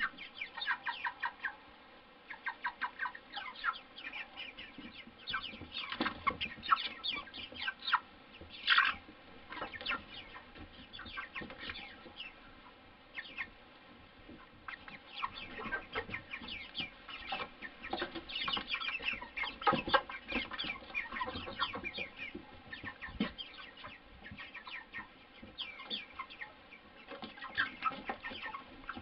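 A flock of white broiler chickens clucking and cheeping, many short calls in quick runs overlapping one another, with one louder call a little under nine seconds in.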